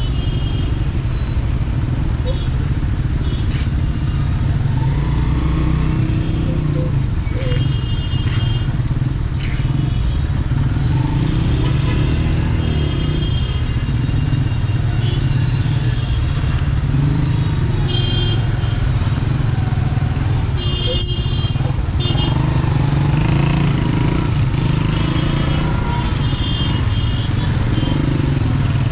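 Motorcycle running at riding speed, heard as a steady low rumble mixed with wind on the camera microphone. Short high-pitched tones break in several times.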